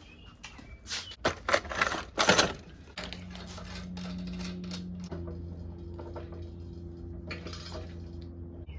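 Loose steel washers clinking and clattering as they are handled and dropped, a quick run of sharp metallic clicks; about three seconds in this gives way to a steady low hum.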